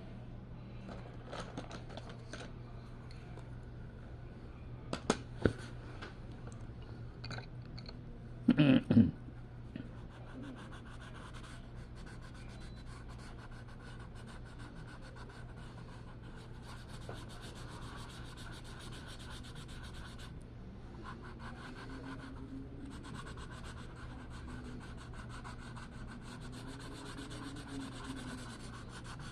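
Steady scratchy rubbing of an artist's tool working a surface, over a low steady hum. Two sharp clicks come about five seconds in, and a short, loud, low-pitched burst near nine seconds.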